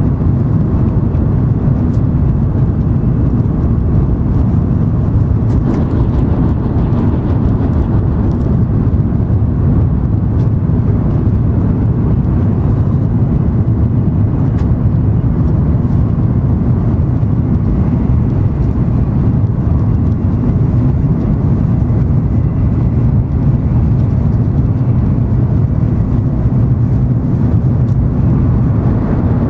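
Steady low rumble of running noise inside the passenger cabin of an N700 series Shinkansen travelling on the line, with a few faint ticks in the first half.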